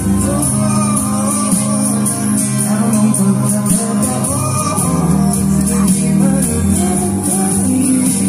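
Live song performance: a male singer singing over acoustic guitar, amplified through the stage PA.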